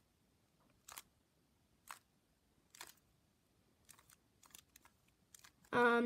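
Stickerless plastic Rubik's cube being turned by hand, each layer turn giving a short click: about one a second at first, then a run of quicker, fainter clicks near the end, as the righty algorithm (R U R' U') is worked through slowly.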